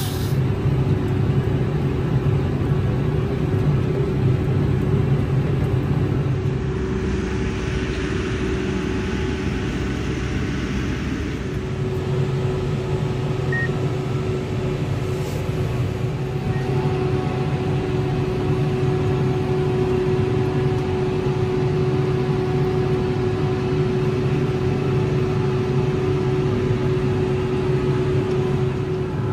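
John Deere tractor engine running with a steady low drone and a constant hum. A brighter hiss joins for a few seconds about a quarter of the way in.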